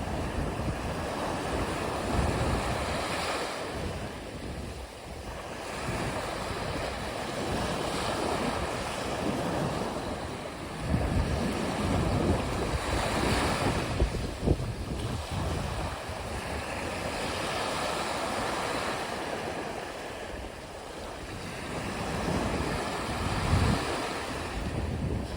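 Sea waves breaking and washing on the shore, swelling and easing every few seconds, with wind buffeting the microphone.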